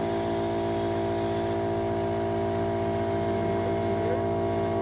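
An electric motor running with a steady, even hum that holds at one pitch.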